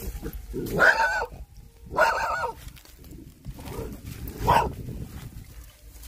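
Three short, loud calls with a wavering pitch, the last one about four and a half seconds in.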